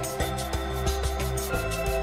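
Background music with a steady beat, a moving bass line and held notes.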